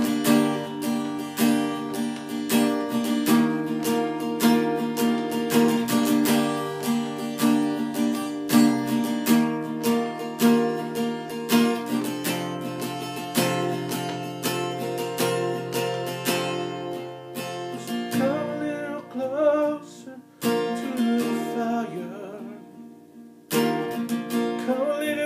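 Acoustic guitar strumming chords in an instrumental break of a song. About two-thirds of the way in the strumming thins out and a singing voice comes in, with brief pauses near the end.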